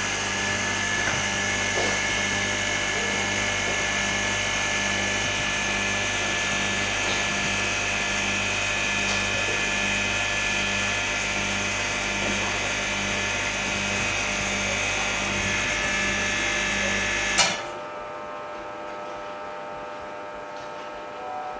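JiuTu OCA laminating machine running its lamination and bubble-removal cycle: a steady motor hum with a light, even pulsing. It cuts off with a click about 17 seconds in, leaving a quieter hum.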